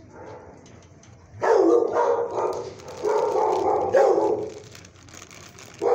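Dog howling close by: after a quiet start, a run of loud, drawn-out howls from about a second and a half in, fading out at about four and a half seconds, with another starting right at the end. The howls are those of a lonely kennelled dog calling out at a visitor's presence.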